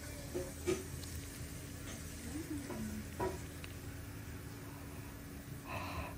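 Steady low hum with crackling hiss, broken by a few short clicks, the loudest about a second in and about three seconds in, and a brief muffled sound near the end.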